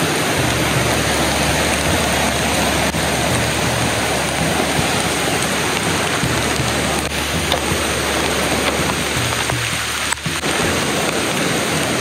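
A rushing river and heavy rain together, a loud, steady hiss of water.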